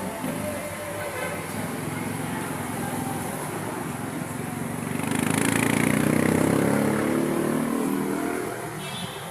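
Jeepney engine running in traffic. It swells louder about five seconds in, as if accelerating, and eases off again near the end.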